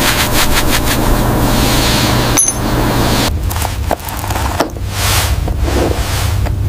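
Microfiber cloth rubbing over a gold chain, a steady rustle for the first couple of seconds. It is followed by scattered light taps and clicks as jewellery is handled and set into leather ring and necklace boxes on a wooden table.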